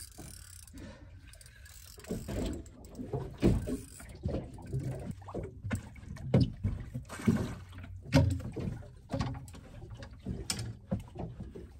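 Spinning fishing reel being wound in against a fish, its gears clicking, with irregular knocks and bumps of tackle and handling against the boat as the fish is brought alongside.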